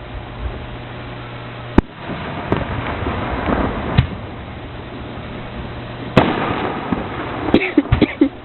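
Fireworks display: aerial shells bursting with sharp bangs, about half a dozen, the loudest near two seconds and six seconds in, with a quick cluster near the end, over a steady low hum.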